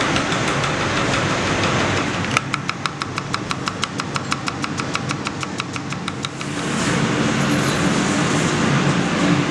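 Chef's knife rapidly chopping shallots on a round wooden cutting board: about six even taps a second, starting a couple of seconds in and stopping about six seconds in, over a steady background rumble.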